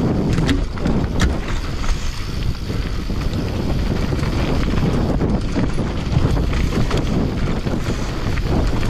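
Wind buffeting an action-camera microphone over the steady rumble of Commencal mountain bike tyres on a rough downhill trail, with sharp rattles from the bike about half a second and a second in.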